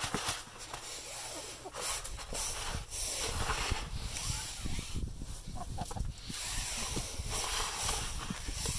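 Dry chicken scratch (cracked corn and mixed grain) rustling and pattering as a hand scoops it in a rubber feed tub and scatters it on the ground, with many small quick ticks.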